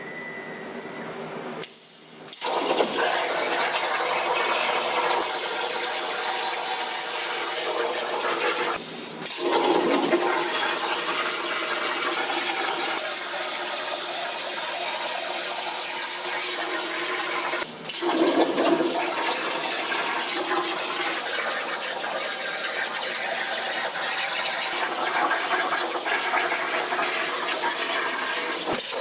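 CNC plasma cutter cutting steel: a steady loud rushing hiss of the arc and air jet, with brief breaks about 2, 9 and 18 seconds in where the cut stops and the torch fires again.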